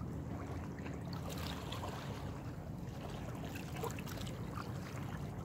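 Small waves lapping against shoreline rocks, with a steady low rumble of wind on the microphone.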